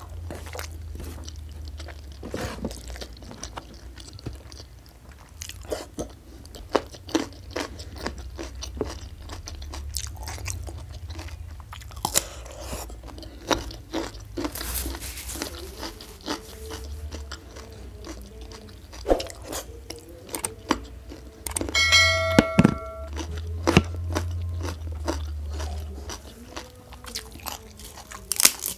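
Close-miked chewing and lip-smacking of rice and fish in green-chili sambal eaten by hand, with crunchy bites throughout. A short pitched squeak comes about two-thirds of the way in, and a crisp crackle near the end as a shrimp-style cracker (kerupuk) is broken.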